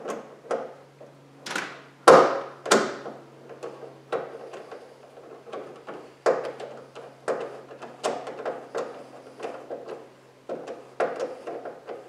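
Screwdriver turning a fastener on a car's roof-lock mechanism: a run of irregular metallic clicks and short scrapes, loudest in a few longer strokes about two seconds in, with a quick cluster of clicks near the end.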